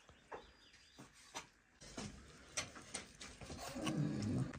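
Cleaver knocking on a wooden chopping board as cooked pork is sliced: a string of separate sharp knocks, roughly one every half second to a second.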